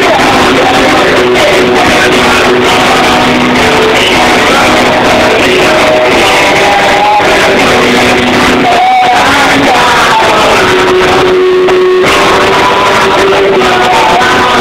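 Loud karaoke: a rock backing track with guitar, and a voice singing the melody over it with long held notes.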